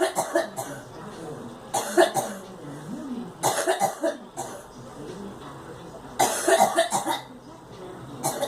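A girl coughing in repeated fits, each a quick cluster of coughs, coming every two seconds or so.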